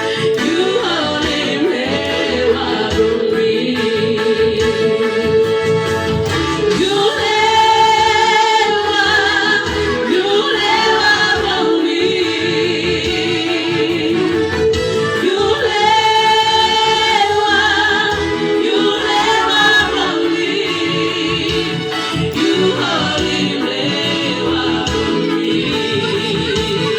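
A singing voice over a steady musical backing, holding two long notes that waver in vibrato.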